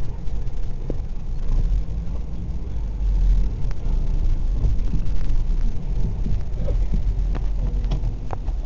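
Wind buffeting the camera's microphone: a loud, uneven low rumble that rises and falls, strongest around the middle.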